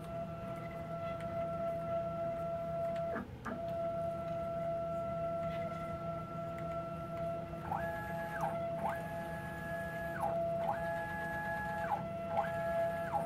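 Stepper motors of a home-built CNC router driving its gantry on Acme lead screws: a steady whine that drops out for a moment about three seconds in. From about eight seconds a second, higher whine joins four times, each rising in pitch, holding, then falling as the axis speeds up, runs and slows to a stop.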